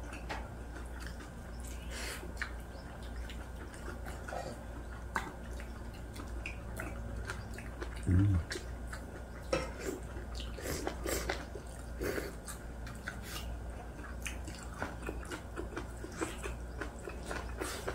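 People eating braised pork back ribs and boiled radish greens: quiet chewing and mouth sounds with light clicks of chopsticks against bowls, scattered throughout. A short low hum stands out about eight seconds in.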